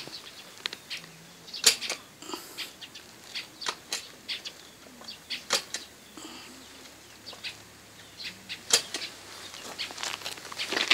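Scattered short clicks and crunches, irregularly spaced, as of feet shifting on a gravel road. No engine is running.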